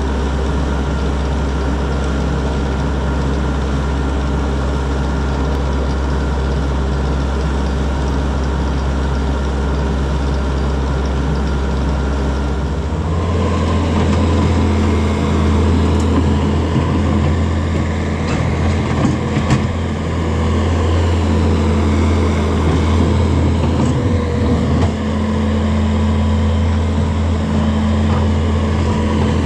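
Skid steer engine running steadily. About 13 seconds in its note shifts higher and busier as it speeds up.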